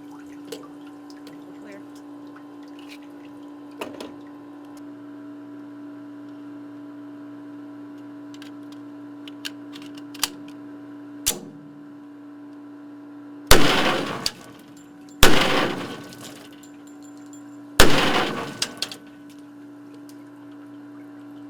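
Three gunshots fired into a ballistics water tank, about one and a half and two and a half seconds apart, each ringing off briefly in the enclosed room, over a steady hum; a few faint clicks come earlier.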